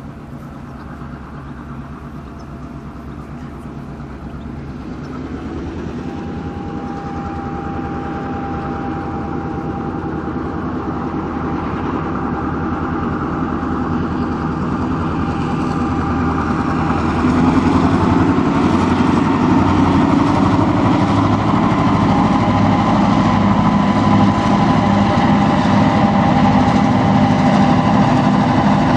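Two S class 'bulldog' streamliner diesel-electric locomotives (EMD 16-567 engines) hauling a loaded wheat train as it approaches. The diesel engine sound grows steadily louder for about the first 17 seconds, then holds loud and steady, with a steady high whine over the low engine note.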